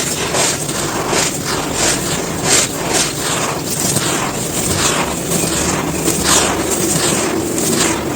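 Dry, crispy sand chunks being crumbled, giving a run of irregular crunches, roughly two a second, over a steady gritty hiss of grains falling and rubbing.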